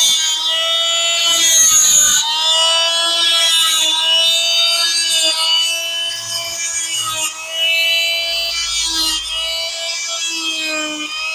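Power tool motor whining at a steady pitch while cutting wooden dowels, with a rough rasping of wood. Its pitch dips briefly a few times, most clearly near the end, as the blade bites into the wood.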